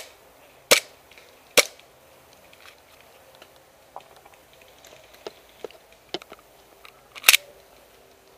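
Airsoft guns firing: three sharp, loud shots in the first two seconds, scattered fainter shots in the middle, and a loud double shot near the end.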